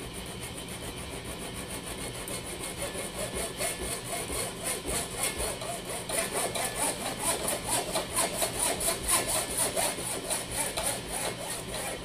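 Hand hacksaw sawing through a rotary switch's plastic stem to cut the cap off, in quick, even back-and-forth strokes. The strokes are light at first and get louder from about two seconds in.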